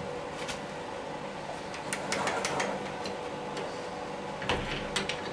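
A few light metallic clicks and taps as tooling is handled at a metal lathe's toolpost: a cluster about two seconds in and another near the end, over a steady machine hum.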